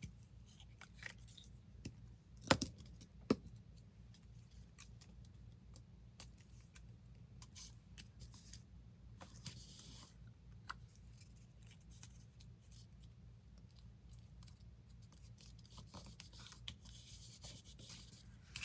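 Paper cutouts being handled, glued and pressed down on a cutting mat: soft paper rustling and rubbing with scattered light taps, and two sharp clicks about two and a half and three seconds in.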